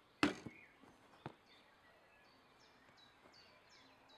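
A few sharp knocks in the first second and a half. Then a bird calls with a short, high, falling note repeated about three times a second.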